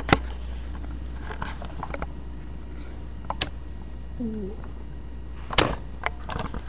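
Beyblade spinning tops clacking against each other and the walls of a wooden box arena: a few sharp clacks, the loudest a little past five seconds in, over a steady low hum.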